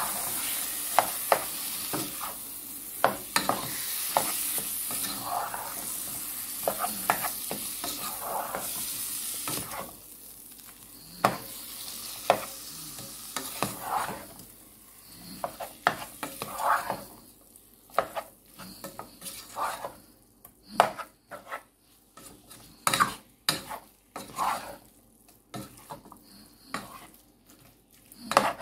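Chicken pieces frying with curry powder in a saucepan, sizzling while a spatula stirs and scrapes them, with sharp knocks of the spatula against the pot. The sizzle drops away about ten seconds in, leaving scattered scrapes and knocks of the stirring.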